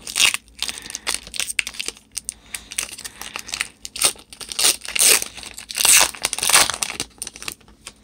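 Foil Pokémon booster-pack wrapper being torn open and crinkled by hand: irregular rips and rustles, loudest about five to seven seconds in, stopping just before the end.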